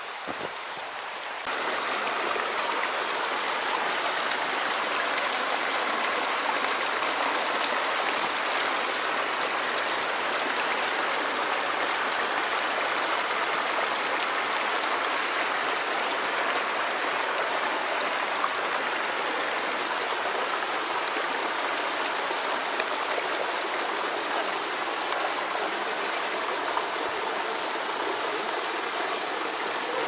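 Rushing water of a mountain river flowing over rocks, a steady even noise that jumps louder about a second and a half in.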